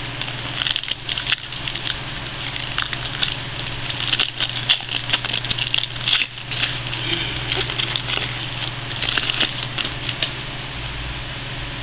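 Trading cards and their packaging being handled: irregular rustling and quick clicks of cards sliding and being flipped, over a steady low hum.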